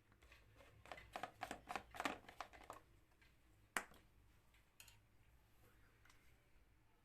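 Quick run of light crackling and rustling clicks, like dry material being handled, lasting about two seconds, followed by a single sharp click and a fainter one a second later.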